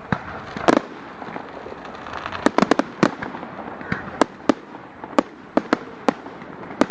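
Fireworks display going off: a string of sharp, irregular bangs, about a dozen, over a steady crackle, with clusters of several bangs close together.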